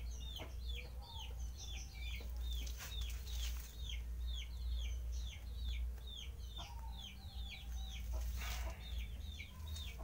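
Chicks peeping: a continuous run of short, high, falling peeps, two or three a second, over a low rumble. A brief rustle sounds about eight and a half seconds in.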